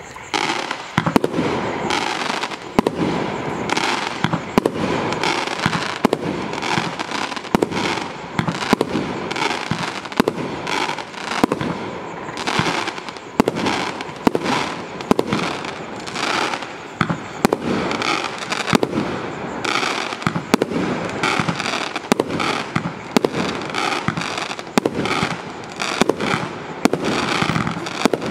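Category 4 firework cake firing a continuous sequence of shots of red dahlia and titanium silver chrysanthemum: repeated launches and aerial bursts, about one to two a second, over a steady crackle.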